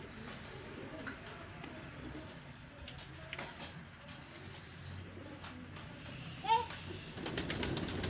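Pigeons cooing faintly in the loft, then near the end a flock of pigeons bursting out of the door in a rush of flapping wings that grows louder.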